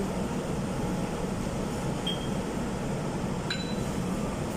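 Steady hum of a busy dining room, with two light clinks of tableware: a short ringing ping about two seconds in and a sharper clink with a ringing tail about three and a half seconds in.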